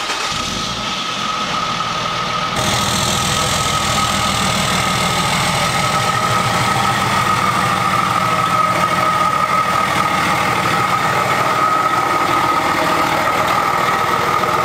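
The 6.7-litre Cummins inline-six turbodiesel of a 2007.5 Dodge Ram idling steadily through an aftermarket MBRP exhaust, just after being started. About two and a half seconds in the sound changes abruptly to a fuller, deeper rumble.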